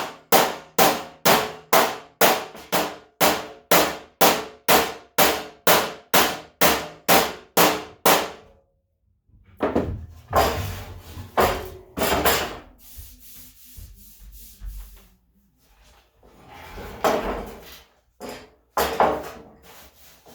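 Body hammer tapping on the steel fender of a 1978 Ford F100, working out a small dent. It strikes in an even run of about three ringing blows a second for some eight seconds, then stops. Irregular scraping and knocking on the panel follow.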